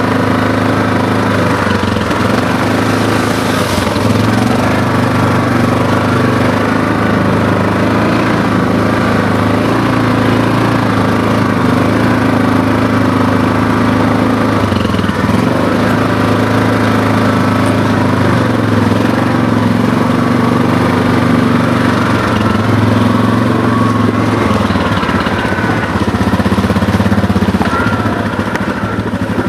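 ATV engine running as the quad is ridden along a trail, its note rising and falling as the throttle changes.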